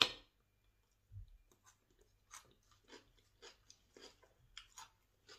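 Close-up chewing of crunchy raw salad: a string of soft, irregular crunches, roughly two a second, after a single sharp clink of a fork on the plate right at the start.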